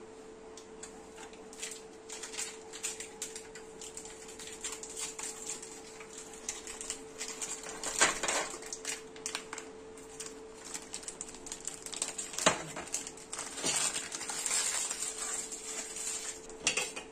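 Biscuits clicking and clattering on a stainless-steel plate as they are set down, with the crinkle of plastic biscuit wrappers being torn open. Irregular clicks throughout, the loudest about eight and twelve seconds in.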